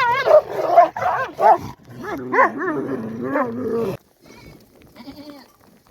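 Sheep and young goats bleating, several quavering calls overlapping, which cut off abruptly about four seconds in; a fainter single bleat follows.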